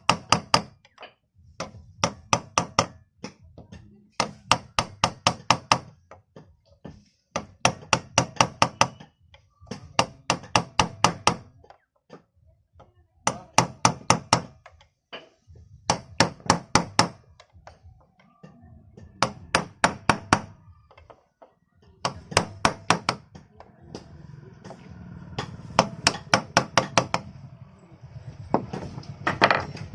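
Hammer tapping a 608 ball bearing into place on an electric planer during a bearing replacement: quick runs of five to eight sharp strikes, repeated every two to three seconds. A low steady hum joins in near the end.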